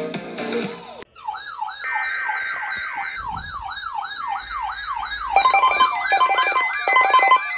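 Music breaks off about a second in, and an electronic siren starts, yelping quickly up and down about three times a second. A few seconds later a plucked, guitar-like melody joins the siren.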